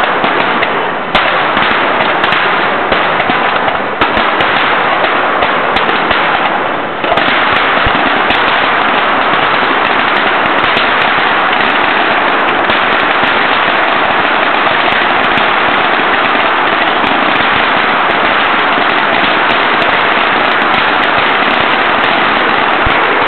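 Fireworks display: dense, rapid crackling of firecracker-type shells, which thickens about seven seconds in into an unbroken crackle.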